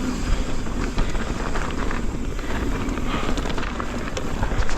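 Wind rushing over the microphone and tyres rolling over wet dirt on a fast full-suspension mountain-bike descent, with frequent small knocks and rattles from the bike over the bumps.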